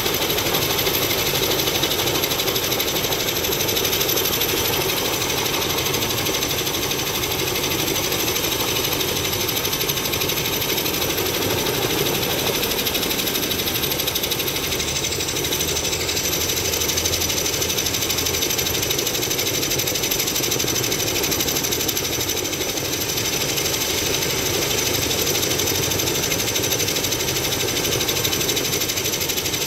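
Helicopter running close by: a fast, steady chop of the rotor blades under a high, constant turbine whine.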